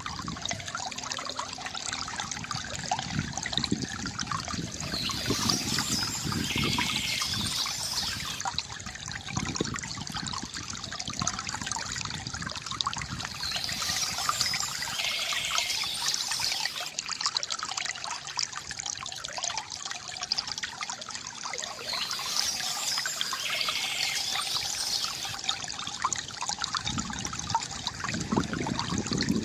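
Water trickling and gurgling steadily from a bamboo fountain, with a brighter splashing hiss that swells about every eight or nine seconds.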